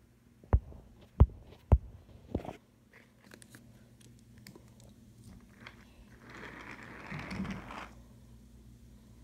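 Handling noise: three sharp knocks about half a second apart near the start, with a weaker fourth just after. About six seconds in comes a soft rustling hiss lasting under two seconds.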